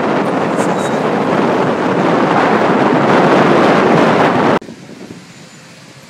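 Wind buffeting the microphone of a phone carried on a moving motorbike, a loud even rush over the road noise. It cuts off suddenly about two-thirds of the way through, leaving faint street ambience.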